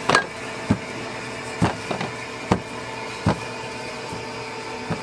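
A wooden rolling pin works pie dough on a stainless steel counter, giving several sharp knocks at irregular intervals. A steady mechanical hum runs underneath.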